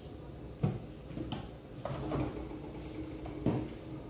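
A handful of separate knocks and clunks of kitchen things being handled and set down, about five in four seconds, with the loudest near the start and near the end.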